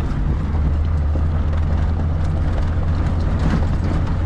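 Jeep driving along a dirt trail: a steady low engine and drivetrain drone with tyre and wind noise coming in through the open, doors-off cab.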